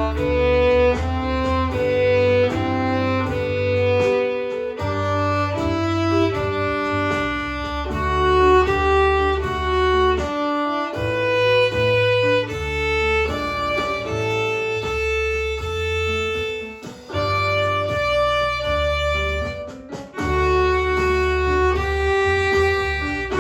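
Violin playing a bluesy tune in separate bowed notes over an accompaniment with a low bass line, with two brief breaks near the end.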